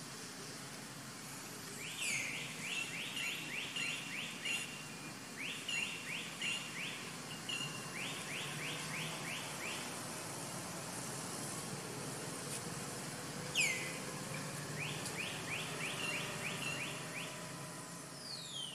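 A bird calling: a falling whistled sweep followed by a quick run of short chirps, repeated several times, over steady outdoor background noise.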